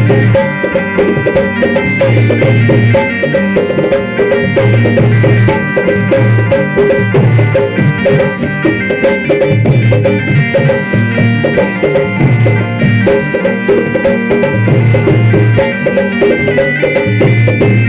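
Loud traditional folk music: sustained held melody tones over a steady drone, with a low drum struck in a regular beat about once a second.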